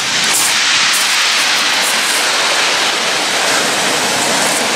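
Sea surf breaking and washing up a shingle beach, a steady loud rush of water over stones.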